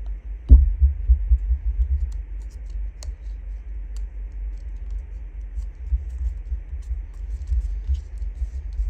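Hands handling and pressing paper pieces onto a mini paper envelope on a craft table: a single thud about half a second in, then soft low bumps against the table and faint paper clicks.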